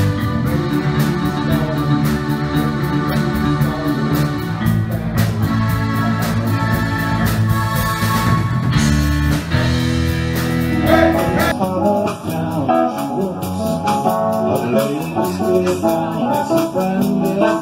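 Live band music: keyboard, drum kit and electric guitar playing together. About eleven and a half seconds in, it cuts abruptly to a different live recording of the band that sounds thinner.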